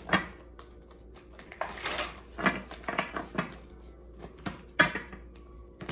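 A deck of tarot cards shuffled by hand: an irregular run of soft clicks and taps as the cards are cut and dropped together.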